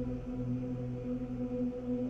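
Ambient background music: low, sustained droning tones held steadily.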